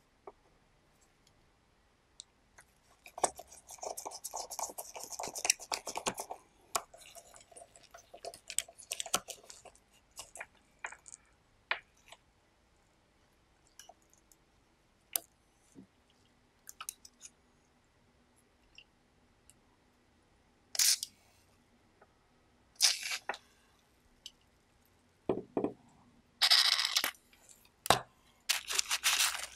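Handling noises from work on a cassette recorder's tape mechanism with gloved hands: scattered clicks and taps of small metal parts, with stretches of rustling and scraping, the densest about three to six seconds in and again near the end.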